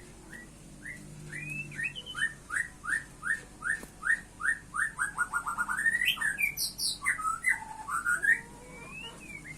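A cage bird calling a steady series of short rising chirps, about three a second, that quicken into a rapid run about five seconds in and break into a few varied notes.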